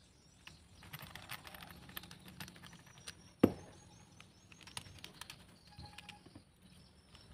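Faint handling clicks and light metal scrapes as a drill chuck is unscrewed from the mini drill's threaded shaft adapter and a keyless chuck is threaded on by hand, with one sharper knock about three and a half seconds in.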